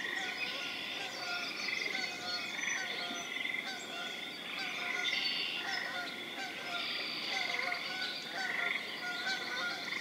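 Evening wetland chorus of frogs calling continuously, with Canada geese honking repeatedly through it.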